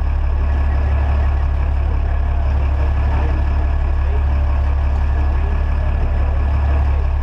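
Fishing boat's inboard engine running at a steady low drone while the boat is underway trolling, with wind and water rushing past the hull.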